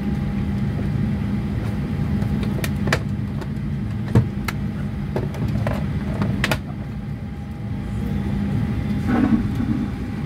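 Jet airliner cabin while taxiing: steady low rumble of the engines with a faint steady whine. A few sharp clicks sound over it, the loudest about four seconds in.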